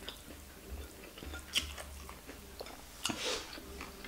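A person chewing a mouthful of rice with fried egg and stir-fried cabbage, close to the microphone: soft wet mouth clicks, with short breathy noises about one and a half seconds in and again about three seconds in.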